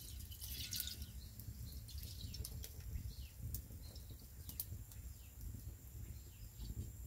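Milk pouring in a steady stream from a carton into a clay pot of liquid, a faint low gurgle, with a few sharp crackles from the wood fire beneath.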